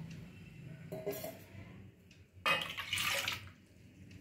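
Water poured from a steel tumbler into a stainless steel pot of curd, a short splashing pour about two and a half seconds in.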